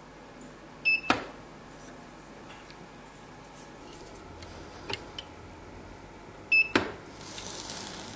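A blood-bag tube sealer (LMB SEALmatic M) beeps twice while sealing a plastic blood-bag tube, about a second in and again some six seconds later. Each short, high beep is followed right after by a sharp click, and a soft hiss follows the second one.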